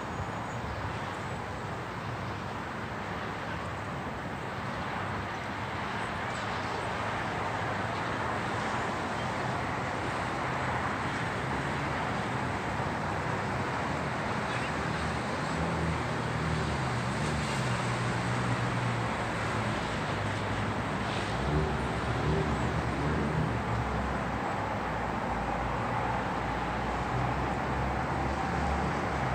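City street traffic: a steady wash of car and engine noise, with a vehicle's engine getting louder about halfway through as it passes.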